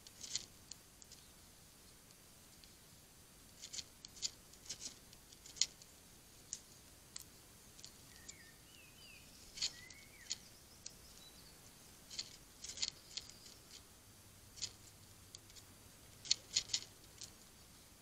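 Eurasian red squirrel cracking and gnawing seeds or nuts at a bird feeder: irregular sharp crunching clicks, sometimes several in quick succession. Faint bird chirps come through about halfway.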